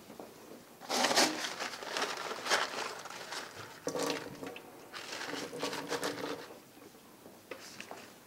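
Tap water running from a faucet into a plastic bedpan held over a stainless steel sink, splashing unevenly as the bedpan is rinsed out, in two stretches, dying down near the end.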